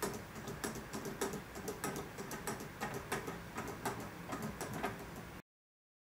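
LEGO Technic plastic gears rolling along toothed gear racks: a rapid, irregular plastic clicking and ticking as the teeth mesh and the rolling mechanism tumbles along the track. It cuts off abruptly about five and a half seconds in.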